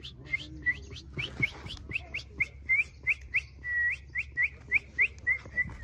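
A person whistling short, repeated chirps, about four a second, with one longer whistle near the middle, to call puppies.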